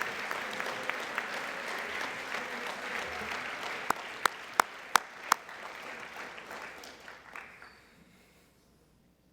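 Audience applauding, dying away about eight seconds in. Near the middle, five sharp cracks in quick succession stand out above the clapping as the loudest sounds.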